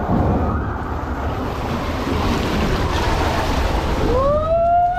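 Water rushing and the rumble of a rider sliding down an enclosed water-slide tube, with wind noise on the microphone. Near the end a voice calls out in one long note that rises and then falls.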